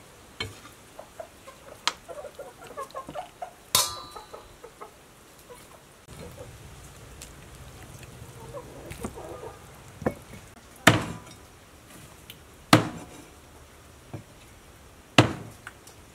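A cleaver chopping raw chicken on a wooden chopping block: about five sharp chops a couple of seconds apart, one of them ringing briefly. Hens cluck softly between the chops.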